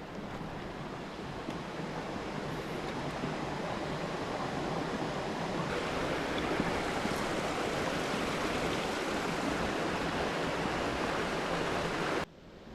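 Creek water rushing in a steady stream that grows louder over the first half, then cuts off suddenly near the end.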